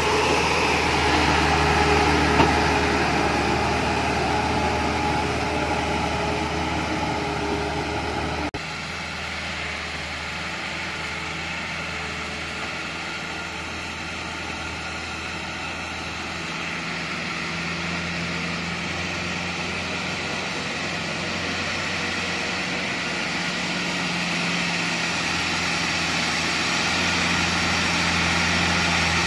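Chiến Thắng light truck's diesel engine running as the heavily loaded truck crawls through deep mud. It is loud and close beside the rear wheel at first, then cuts abruptly about eight seconds in to a farther, quieter engine sound that grows louder as the truck comes nearer.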